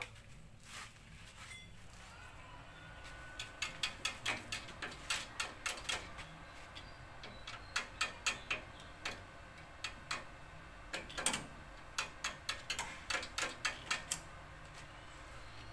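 Stick-welding electrode tapped and scratched against a tricycle sidecar's steel frame, giving a run of sharp irregular clicks, several a second, from about three seconds in, without an arc catching. The welder takes this for a missing ground connection.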